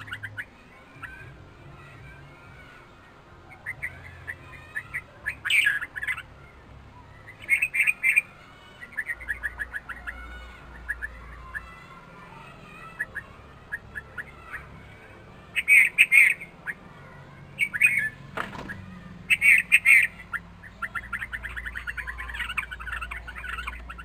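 Red-vented bulbul giving bursts of short chirping calls in scattered clusters, running into a quicker string of chirps near the end. One sharp knock sounds about three-quarters of the way through.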